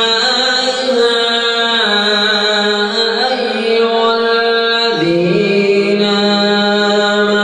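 A man reciting the Quran in a slow, melodic chanting style into a microphone, holding long drawn-out notes; the pitch shifts lower about five seconds in.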